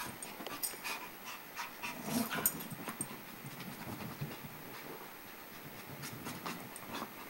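Dog panting, with scattered faint clicks and rustles.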